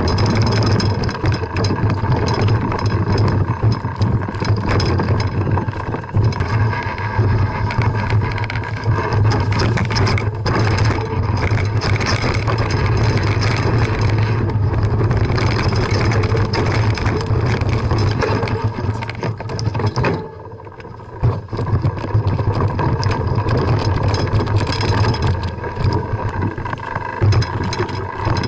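Wind rumble and rattling on a mountain bike's action camera jolting along a rocky dirt trail, with a brief lull about twenty seconds in.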